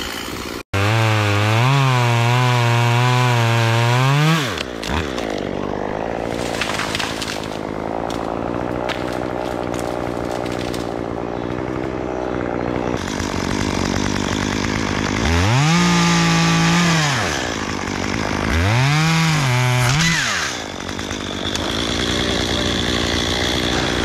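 Chainsaw work: a saw held at full throttle for about four seconds and then let off, then rough cutting noise. Later the saw is revved up and let back down twice in quick succession.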